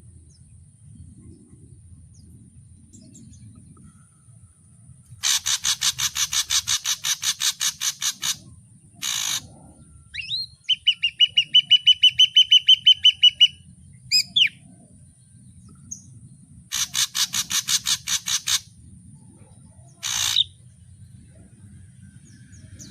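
Ashy drongo singing a string of varied phrases: a fast, harsh rattle of repeated notes, a short rasping call, then a quick run of whistled notes, with another rattle and a rasping call near the end.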